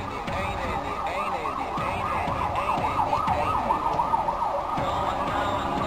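A siren-like warbling tone, rising and falling about three times a second, that stops about five seconds in.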